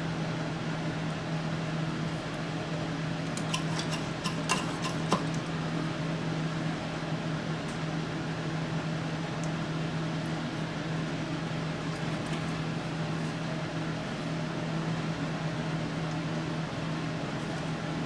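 Steady machine hum with one strong low tone, like a small fan or room ventilation running, with a few light clicks and ticks about four to five seconds in.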